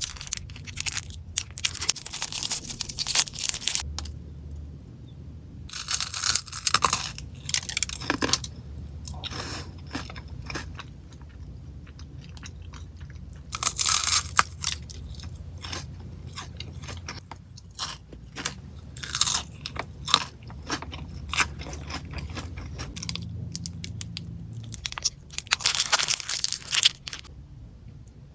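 Close-up crunching and chewing of Ferrero Rocher chocolates, the wafer shells and chopped-hazelnut coating crackling in bursts every few seconds, with quieter chewing between them. A steady low hum runs underneath.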